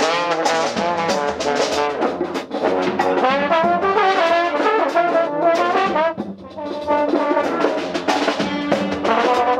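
Live brass band playing in quick, changing notes, with a trombone up close and loudest. The playing breaks off briefly a little after six seconds, then resumes.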